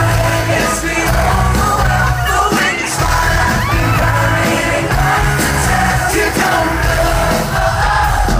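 Live pop band at full volume, with drums, electric guitar, bass and lead vocals, recorded from within the crowd over fans yelling and singing along. The low end drops out briefly about three seconds in, then comes back.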